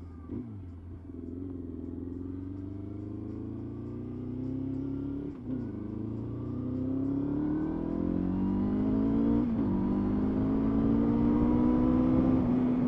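Motorcycle engine accelerating through the gears, its pitch climbing and dropping back at upshifts about five and nine and a half seconds in, then holding steady near the end. The rider suspects the engine is down on power and running on fewer cylinders than it should.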